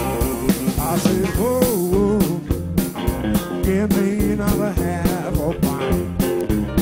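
Live blues band playing: electric guitar, electric bass and a drum kit keeping a steady beat, with a lead line that bends in pitch over them.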